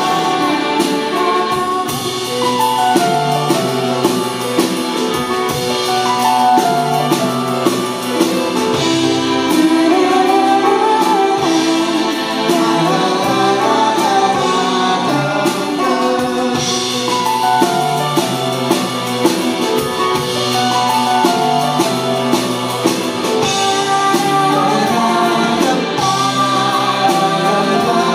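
Live band music recorded from the audience: a singer over acoustic guitar and keyboards, with drums keeping a steady beat.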